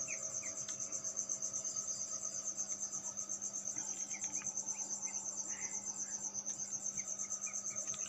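A cricket trilling in a fast, even pulse, over a low steady hum.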